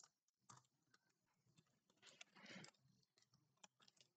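Near silence, with faint scattered computer keyboard clicks as code is typed.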